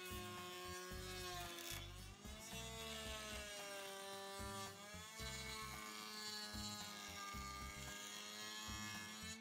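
Router in a router table running with a high whine, its pitch sagging and recovering a few times as the rabbeting bit cuts around the inside of a plywood box frame.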